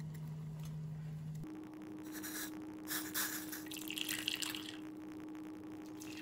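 Hot liquid poured from a small steel saucepan through a steel tea strainer into glass cups, splashing and trickling for a few seconds from about two seconds in, over a faint steady hum.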